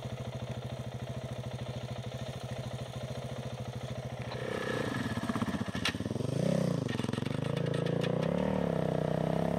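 KTM motorcycle engine ticking over with an even putter, then revved up and down a few times from about halfway, settling into steady running; a single sharp click just before the revs peak.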